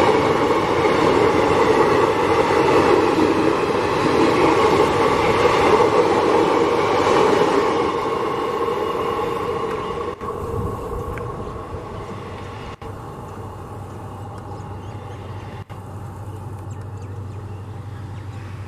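A passenger train running past on the rails, its rumble loud for the first eight seconds or so. The sound then fades as the train goes by, leaving a quieter low steady hum.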